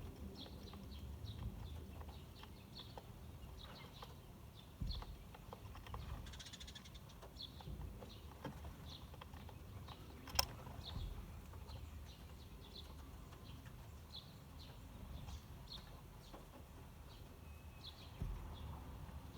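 Eurasian tree sparrows chirping: short, high chirps repeated about once or twice a second, with one sharp click about ten seconds in.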